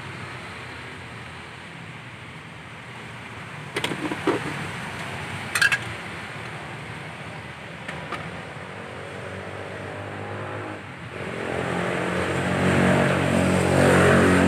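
Steady rumble of a motor vehicle engine running close by, getting clearly louder about 11 seconds in. A few sharp clinks of utensils against bowls come around 4 and 5.5 seconds in.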